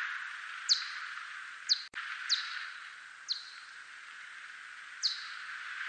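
Echolocation calls of a whiskered bat of the genus Myotis (대륙쇠큰수염박쥐), recorded so that they can be heard. There are five short, sharply downward-sweeping chirps at uneven intervals over a steady hiss.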